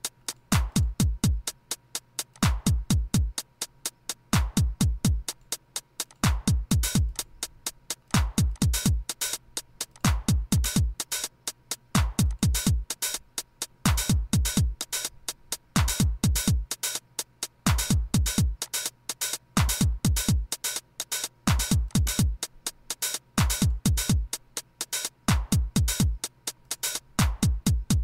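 Drum-machine background music: a beat of quick clusters of deep kick-drum hits that fall in pitch, repeating about every two seconds over steady hi-hat ticks.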